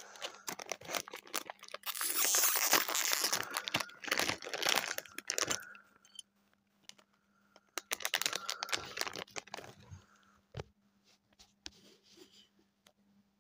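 Foil LEGO Minifigures blind bag being crinkled and torn open by hand, loudest from about two to six seconds in and again around eight seconds, followed by a few sharp clicks.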